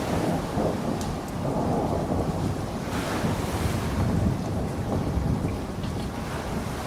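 Thunderstorm: low rolling thunder rumbling under steady rain hiss, with a few sharper raindrop ticks.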